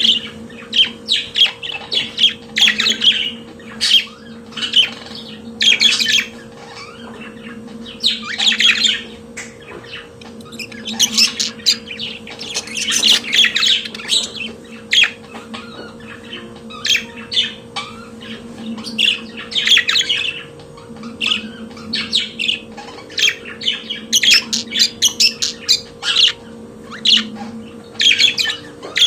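Budgerigar song: a fast, chattering warble of chirps and squawks in bursts with short pauses, over a steady faint hum.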